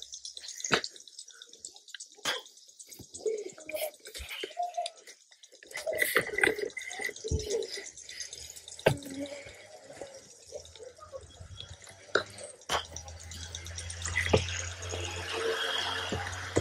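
Golf clubs striking balls on a practice range: a series of sharp, irregular clicks, about one every second or two.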